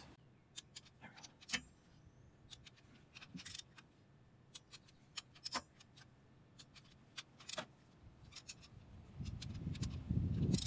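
Irregular light metallic clicks and clinks of hand tools and bolts, faint and scattered, as bolts on the rear main seal housing are worked down onto its rubber gasket. A low rumbling noise comes in about nine seconds in.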